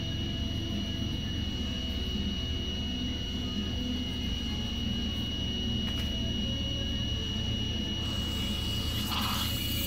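Steady low hum with a thin, constant high whine over it. A hiss starts near the end.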